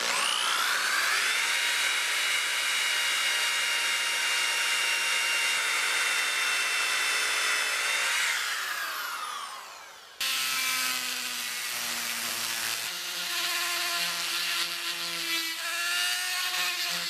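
A DeWalt orbital sander with an 800-grit disc spins up, runs steadily on the steel hatchet head, then winds down about eight seconds in. After a sudden cut, a rotary tool with a small sanding drum runs at high speed on the metal, its pitch shifting a little now and then.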